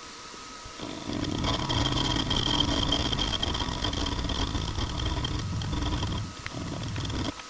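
Precision Matthews PM-25MV benchtop mill running, its end mill cutting along the edge of a small block of metal stock to square it. The cut begins about a second in with a steady high tone over the cutting noise, eases briefly around six seconds, and stops just before the end, leaving the spindle motor running.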